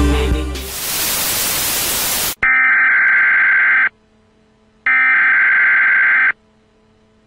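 Music cuts out into a short burst of TV static hiss, then an emergency broadcast alert tone: a harsh electronic buzz sounding in two long beeps of about a second and a half with a pause between, a third starting at the end.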